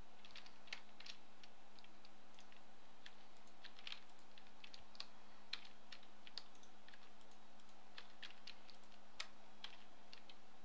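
Faint, irregularly spaced clicks of computer keyboard keys being pressed, over a faint steady low hum.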